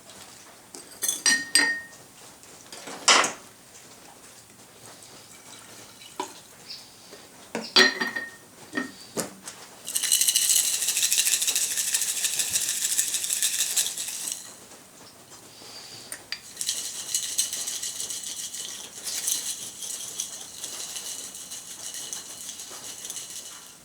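Jar of Satanite refractory mortar and water being mixed: a few clinks and knocks of the jar and lid, then two long spells of steady rattling and sloshing, the first about ten seconds in and the second from about the middle to near the end.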